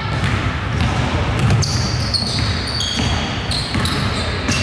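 Basketball bouncing on a gym floor during a game, with several short high squeaks and a steady low rumble throughout.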